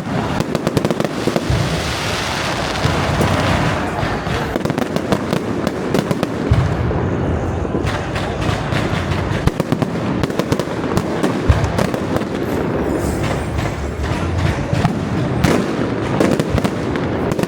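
Fireworks display: a dense, continuous crackle of many small rapid bangs over a steady rumble of larger bursts.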